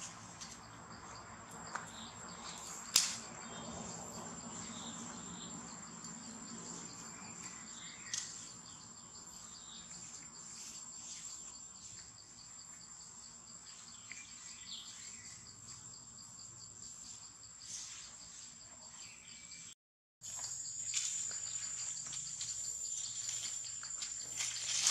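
Steady high-pitched drone of insects, with a few sharp clicks, the loudest about three seconds in. The sound cuts out completely for a moment near the end, then the drone resumes.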